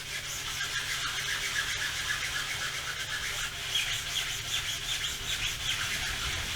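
Hand sanding of a milled aluminium plate with a 100-grit sanding block, quick back-and-forth strokes rasping steadily over a low steady hum, smoothing out the milling grooves.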